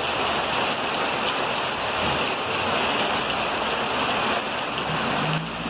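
Muddy flash-flood water rushing along a paved street, a steady, even rush of water.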